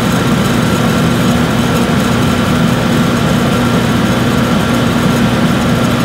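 Portable air conditioner running on high with its compressor on: a steady rush of fan air over a low hum, with a faint high whine.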